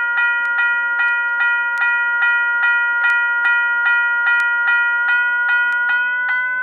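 General Signals Type 1 electronic bell chip ringing: a loud, steady chord of several bell-like tones, struck rapidly about four times a second at its lowest tone setting. Near the end the pitch starts to rise as the tone adjuster is turned.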